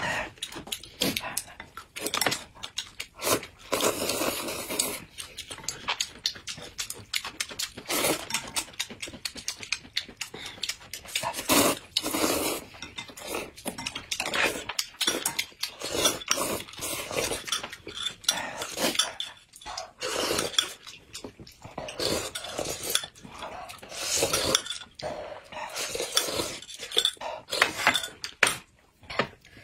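Close-miked eating: noodles slurped and chewed in quick, irregular bursts, with chopsticks and spoons clicking against the bowls.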